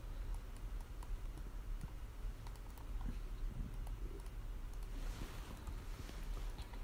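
Faint, scattered clicks of a computer mouse and keyboard, over a low steady hum.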